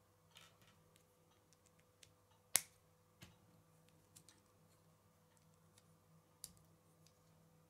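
K'nex plastic connectors and rods being pressed and clicked together by hand: scattered small clicks, the sharpest about two and a half seconds in.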